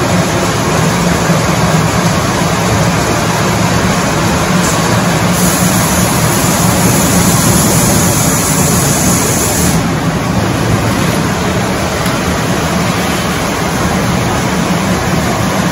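Working sawmill running steadily and loudly, with a high-pitched hiss from about five to ten seconds in as the saw cuts through a log riding on the carriage.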